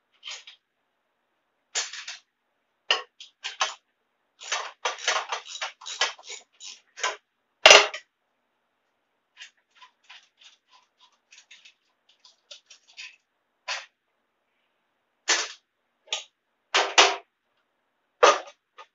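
Metal hand tools and parts clicking and clanking on a garden pulling tractor as it is being taken apart. The knocks are short and irregular, with a quick cluster of them, one sharp loud clank about eight seconds in, fainter quick ticks after that, and a few heavier knocks near the end.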